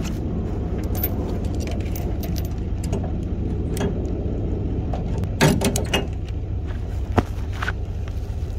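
Trailer safety chains and hitch hardware clinking and rattling against a steady low rumble, with a louder metal clank about five and a half seconds in and a sharp one just after seven seconds.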